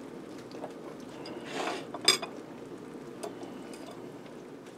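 Table knife and fork scraping and clinking against a ceramic plate while cutting into a chicken breast, with one sharp clink about two seconds in.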